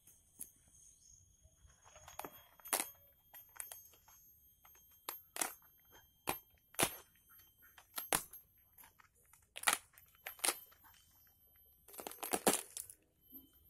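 Bamboo being split open by hand, giving a dozen or so sharp, irregular cracks and snaps, with a quick cluster of them near the end. The bamboo is brittle.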